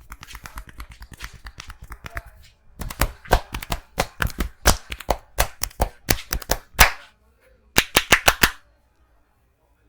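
Hands slapping and tapping on a person's head during a head massage. A fast run of light taps gives way to louder separate slaps, about three a second, then a short pause and a quick final flurry of slaps.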